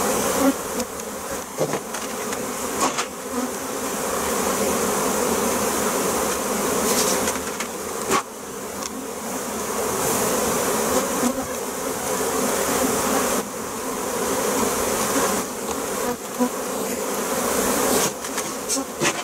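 Dense, steady buzzing of a large mass of honey bees swarming around an open hive as comb frames covered in bees are shaken into it. A few sharp knocks sound through it, as the frames are bounced against the wooden hive box.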